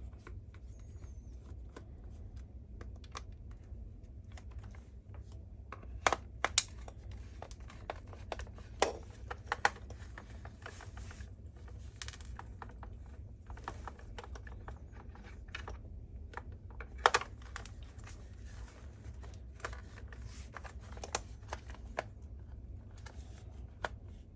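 Screws being undone in the plastic roller head of a cordless vacuum while it is handled: scattered small clicks and taps at irregular times, a few sharper ones, over a steady low hum.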